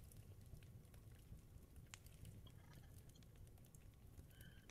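Near silence: faint room tone with a low hum and a few faint, scattered clicks from a computer mouse as a web page is scrolled.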